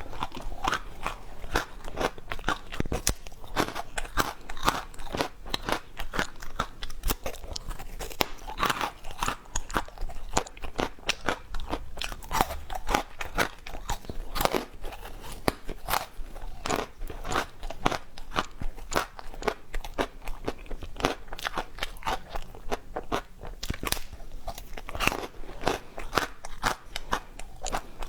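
A person biting and chewing ice close to the microphone: irregular, sharp crunches and crackles, several a second.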